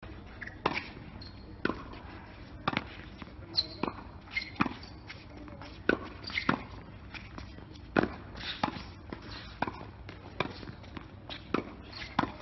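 Tennis ball struck by a racket and bouncing on a hard court during a rally, a sharp pop about every second.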